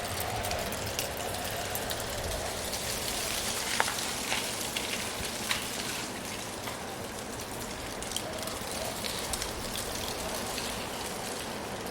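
Wind blowing through leaves: a steady, dense rustle full of small crackling ticks, with a few sharper ticks in the middle and a faint low howl near the start and again later.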